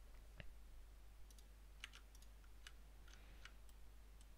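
Faint computer mouse and keyboard clicks, about half a dozen spread irregularly over a few seconds, over a low steady hum.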